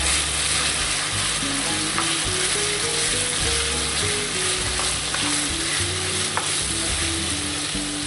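Diced pork neck, bacon and smoked sausage with onion sizzling steadily in hot lard in a frying pan, stirred with a wooden spoon.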